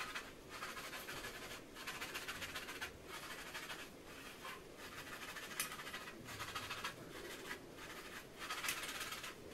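Scalp massager brush scrubbing over damp hair and scalp, working in hair serum: a faint scratching in strokes about a second long with short breaks between them.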